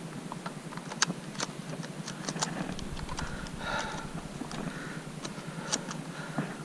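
Footsteps crunching through dry grass on rough ground, with scattered sharp clicks and ticks.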